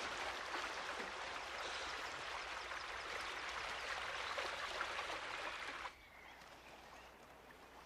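Steady rushing water like a stream, with small ticks and splashes in it, cutting off abruptly about six seconds in to a much quieter background.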